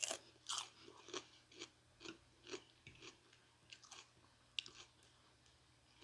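A person chewing food close to the microphone: faint, short mouth clicks at about two a second.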